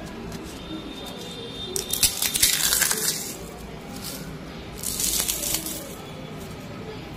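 A crisp fried suji rava (semolina) chip crackling and crunching as it is crushed in the hand, in two bursts: a louder one about two seconds in and a shorter one about five seconds in. The crunch is the sign of a well-fried, crispy chip.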